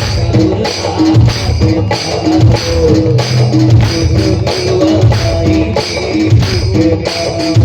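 Instrumental music with a steady, even drum beat under plucked string instruments.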